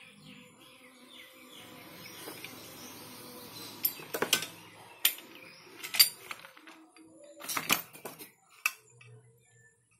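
Handling noise of a plastic bullet-style CCTV camera being picked up and turned over among cardboard packaging and papers: a soft rustle, then a string of sharp clicks and knocks from about four seconds in.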